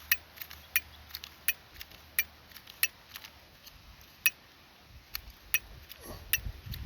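A hand lighter clicking again and again: about a dozen sharp clicks at uneven intervals. It is failing to catch because of the wind.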